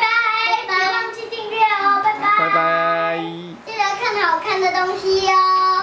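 Children singing in high voices, a sung phrase with a couple of long held notes.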